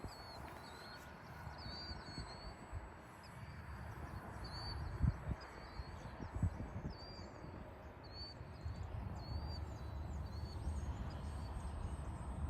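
A small bird chirping repeatedly in short, quick swooping notes, with wind rumbling and buffeting on the microphone.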